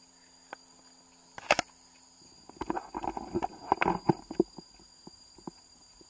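Footsteps and scuffing on a forest trail: a sharp double knock about 1.5 s in, then a run of irregular steps and scrapes for about two seconds, and a few lighter steps after. Two steady high insect tones drone behind.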